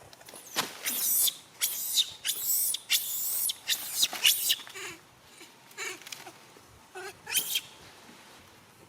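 Baby monkey crying: a run of loud, shrill screams, followed by a few shorter, quieter squeals that stop before the end.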